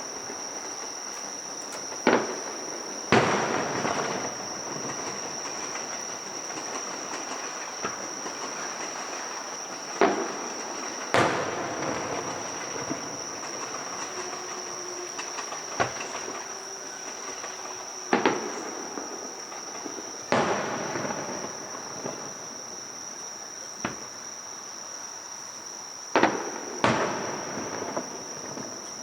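Fireworks shells bursting, about ten sharp bangs at uneven intervals, two close pairs among them, several followed by a crackling, sizzling tail. A steady high insect trill runs underneath.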